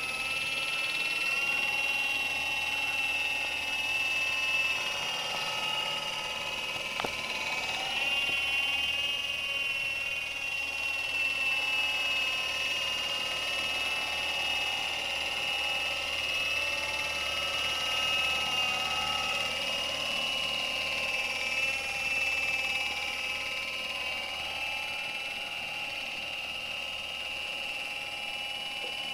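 Electric motor and rotors of a 70 cm four-channel RC Airwolf model helicopter in flight: a steady high whine whose pitch wavers slightly as the throttle changes.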